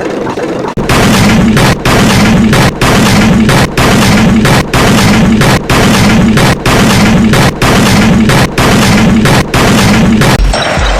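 A very loud, distorted noisy sound effect that starts about a second in and repeats in blasts about once a second, around ten times, with a low pulsing hum under each blast.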